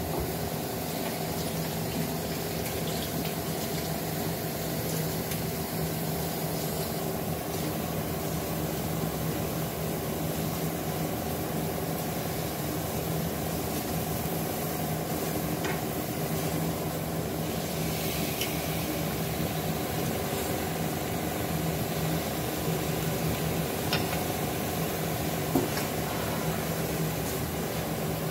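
Mushroom and chicken stew simmering in a pot on the stove: a steady hiss with a steady low hum under it and a few faint clicks.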